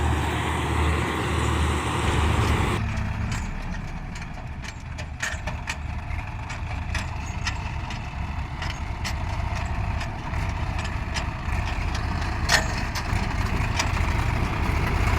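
Combine harvester engine running. About three seconds in the sound drops abruptly to a quieter low engine hum with scattered sharp clicks, and it grows louder again near the end.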